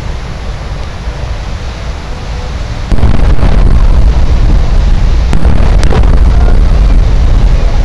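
Aerial firework shells bursting overhead: a sudden loud boom about three seconds in, and another about two seconds later, each followed by rumbling echo. Before the first boom there is a steady low rumble.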